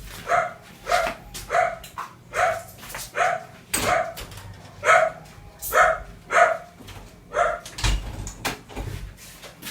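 A dog barking repeatedly, about ten short barks at a steady pace, growing weaker and stopping near the end.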